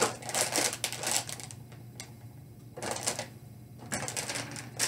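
Plastic model-kit runners clacking and rattling as they are handled and packed into a box, in several bursts of clatter with a short lull in the middle.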